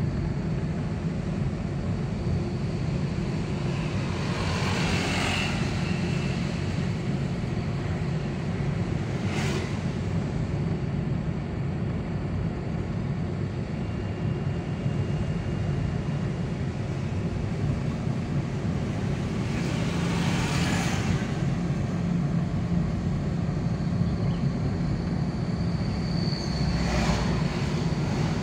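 Road noise heard from inside a moving car: a steady low rumble of engine and tyres, with a few passing vehicles swelling briefly over it, about four times.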